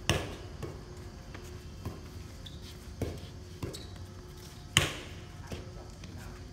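A volleyball being struck by hands and forearms during a rally, a string of sharp slaps: two loud hits, one just after the start and one about five seconds in, with several softer touches between.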